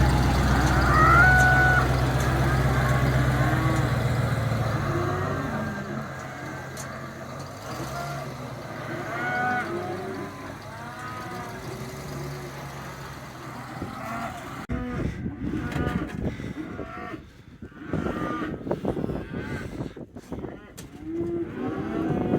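A herd of cattle mooing and bawling, many overlapping calls, over a vehicle engine running that fades away after about five seconds. In the last several seconds, irregular knocks and rattles join the calls.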